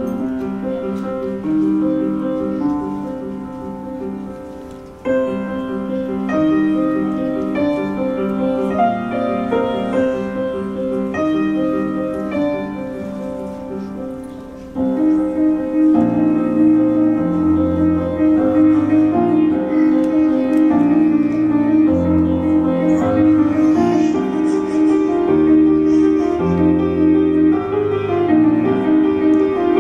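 Grand piano played solo: a melodic passage of struck notes that becomes suddenly louder and fuller about halfway through, with deep bass notes added.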